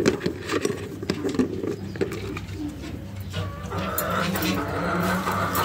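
Domestic pigeons cooing, short wavering low calls, with scattered light clicks and knocks from eggs being handled in a plastic tub. About four seconds in, a steadier, higher sound joins.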